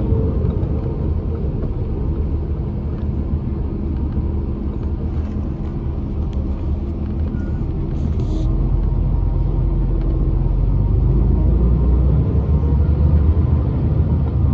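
Bus engine and road rumble heard from inside the cabin, a steady low drone whose pitch drops at first as the bus slows. A brief rattle comes about eight seconds in.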